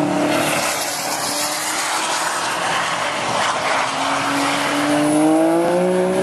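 Car engine revving as the car slides sideways through a wet bend, over a steady rushing noise. The engine note climbs over the last couple of seconds as the car accelerates out.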